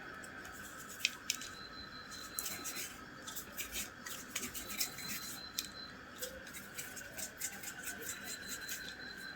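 Hands kneading and working a sticky homemade dough fishing bait in a plate: soft sticky rubbing with scattered light clicks, more frequent after about three seconds. A faint steady high hum sits behind it.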